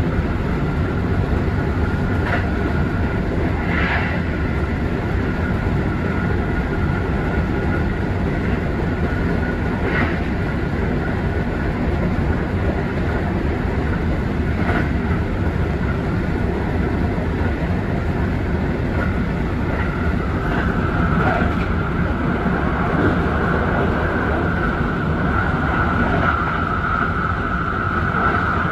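Kintetsu 'Urban Liner' limited express electric train running on the rails, heard from the driver's cab: a steady, dense rumble with a steady high whine that grows louder over the last several seconds, and a few sharp clicks.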